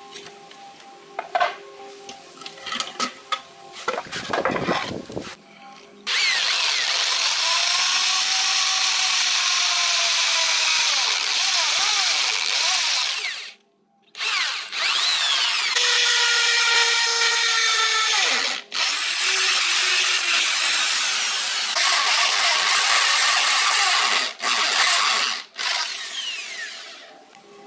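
Handheld electric drill boring into the mortar joints of brickwork. It runs in long stretches, with its pitch rising and falling as the speed changes, and stops briefly a few times. A few knocks and taps come before the drilling, in the first six seconds.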